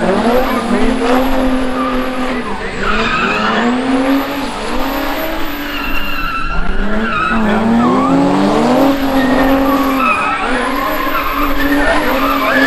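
Drift car engine revving hard, its pitch climbing and dropping again and again as the throttle is worked through the slide, with tires squealing and skidding underneath.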